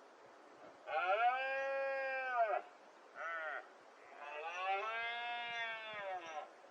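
Red deer stags roaring in the rut: a long roar, a short one, then another long roar, each rising and falling in pitch.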